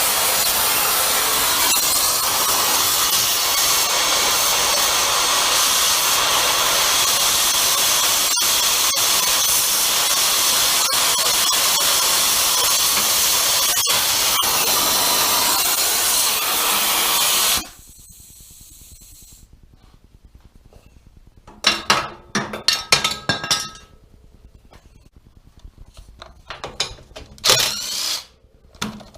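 A cutting torch hissing steadily as it cuts through steel engine mounts, then stopping abruptly about two-thirds of the way through. Near the end come a few clattering knocks from parts being handled.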